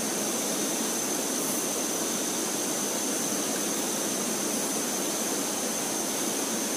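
Fast-flowing, swollen river rushing steadily, with a thin, steady high-pitched tone over it.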